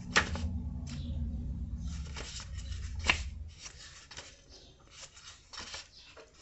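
Cards and paper being handled: scattered rustling with a few sharp clicks, over a low rumble that stops about three and a half seconds in.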